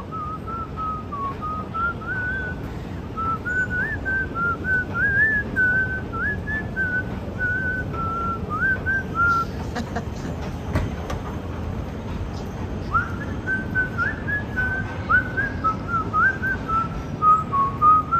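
A person whistling a wandering tune in one clear tone, stepping up and down in pitch. There is a pause of about three seconds midway before the whistling starts again.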